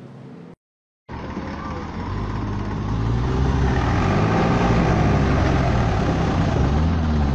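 Farm tractor's diesel engine revving hard under heavy load while hauling a loaded sugarcane trailer, its pitch rising and falling and the sound growing louder, as the overloaded tractor rears up onto its back wheels. It starts about a second in, after a brief stretch of road noise and a short silence at a cut.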